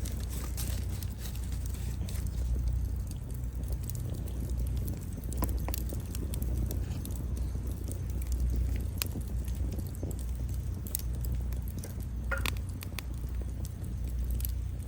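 Wood fire burning: scattered sharp crackles and pops of burning firewood over a low steady rumble, with a few louder pops about five, nine, eleven and twelve seconds in.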